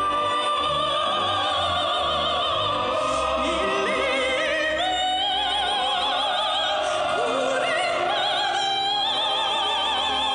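Music: a song with long held notes sung with a strong vibrato over an orchestral accompaniment.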